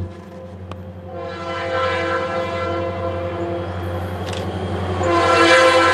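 Air horn of an approaching lead EMD diesel locomotive sounding a steady multi-note chord. It starts about a second in and swells louder near the end as the train nears, over a steady low rumble.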